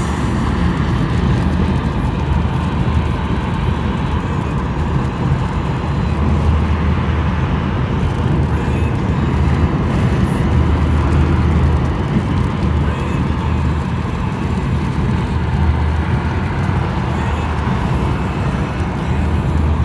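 Steady low rumble of a car on the move: engine and road noise that holds level throughout.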